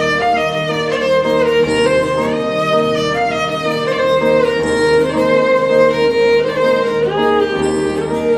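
Background music: a bowed-string melody with sliding notes over a steady held note.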